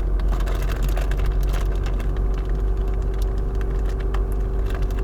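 Steady low rumble of a car moving slowly, heard from inside the cabin, with many irregular small clicks and crackles throughout.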